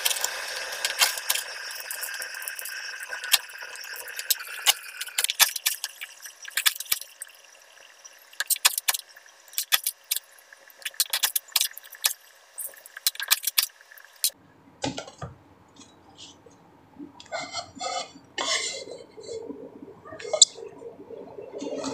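Kitchen knife cutting and peeling lemongrass stalks on a hard counter: a long run of sharp clicks and knocks as the blade hits the surface. About two-thirds of the way in this gives way to softer, duller knocks and handling sounds.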